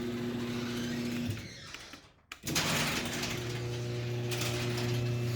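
Garage door opener motor running as it drives the door, a steady mechanical hum; it fades out about a second and a half in and starts again a moment later.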